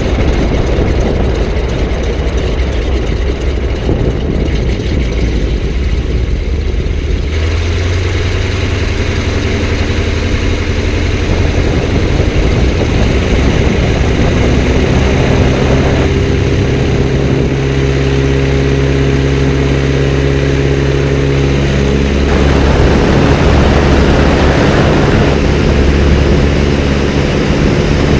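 Biplane's radial engine running as it taxis, its pitch shifting at times, then growing louder in the last few seconds as power comes up for the takeoff run.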